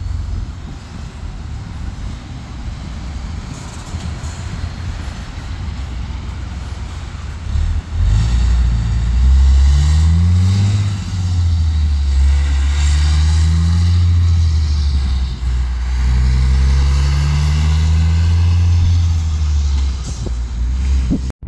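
Heavy diesel tipper truck towing a dog trailer, pulling away from a roundabout. After a few seconds of low traffic rumble, its engine comes in loud about eight seconds in. The engine note rises and drops back three times as it climbs through the gears.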